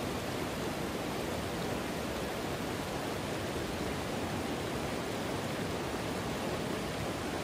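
Steady rush of a fast-flowing mountain stream.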